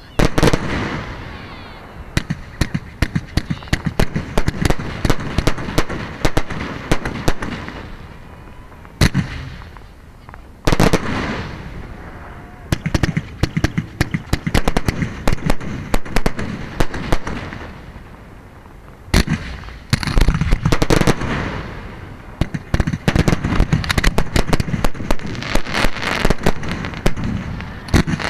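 Aerial firework shells launching and bursting: dense volleys of sharp bangs and crackling that ease off and start again several times.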